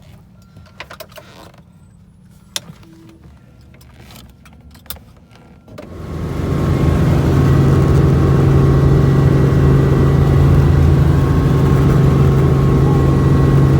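Quiet low hum with small handling clicks for the first few seconds, then about six seconds in a helicopter's loud, steady engine and rotor drone comes up, heard from inside the cabin, with a strong low hum and a few steady higher tones.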